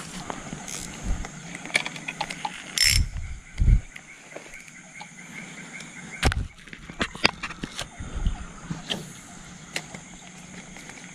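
Fishing reel clicking and ratcheting as a lure is cast and wound back in, with scattered knocks and a few low thumps, the loudest about four seconds in.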